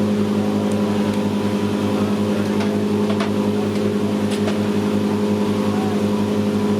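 Boat engine running at a steady speed: a low, even drone that holds one pitch throughout, with a few faint ticks over it.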